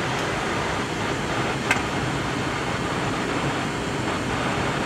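Steady, even noise on the flight deck of a Boeing 767-300ER, with a single click about a second and a half in.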